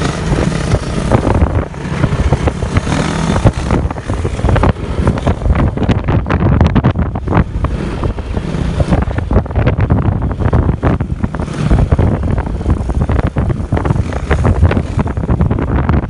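Heavy wind buffeting the microphone on a moving motorcycle, with the motorcycle's engine running underneath.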